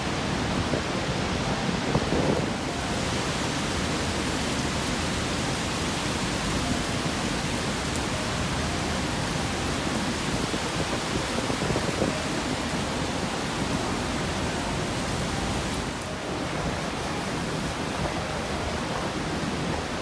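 Niagara's Horseshoe Falls pouring into the basin below, a steady loud rush of falling water and spray.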